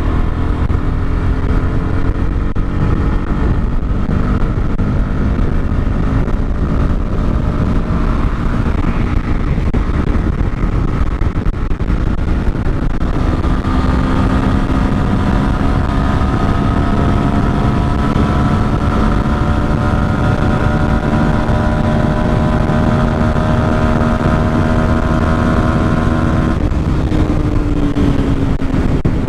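Bajaj Pulsar NS160's single-cylinder engine pulling hard under full throttle at highway speed, its note climbing steadily through the revs, with a dense rumble of wind on the microphone. Near the end the revs fall as the throttle eases.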